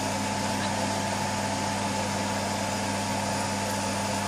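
An electric fan motor running steadily: a low hum under an even rush of air.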